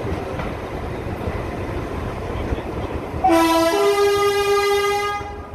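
Steady rumble of the train running on the line, then about three seconds in the Class 14 diesel-hydraulic locomotive sounds its two-tone horn: a short low note, then a higher note held for about a second and a half, cut off sharply.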